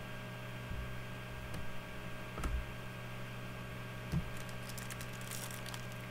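Trading cards and pack wrappers being handled: a few soft taps and small crinkling clicks, more of them near the end, over a steady electrical hum.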